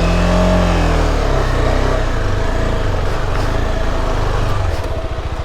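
KTM 250 Adventure's single-cylinder engine running under load on a rough, rocky track. The revs rise and fall briefly at the start, then hold steady, and near the end they drop to a slow, low-rpm chug.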